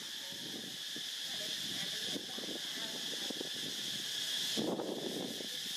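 Steady high-pitched drone of insects, with scattered faint low sounds and a brief louder noise about four and a half seconds in.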